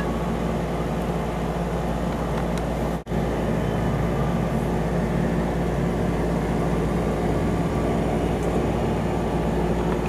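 Small electric motor running with a steady whirring hum, cutting out for an instant about three seconds in.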